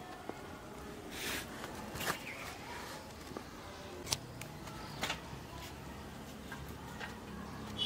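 Fresh coriander being picked over by hand: faint rustles and a few light snaps and taps as the stems are broken and the leaves dropped into a steel bowl. A faint low hum comes in about halfway.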